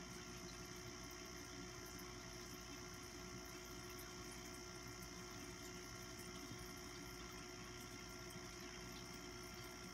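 Faint steady machine hum with several constant whining tones, unchanging throughout.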